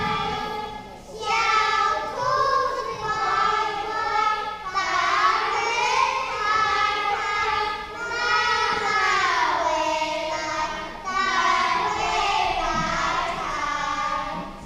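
Young children singing a Mandarin song together in high voices, in phrases with short breaths between them.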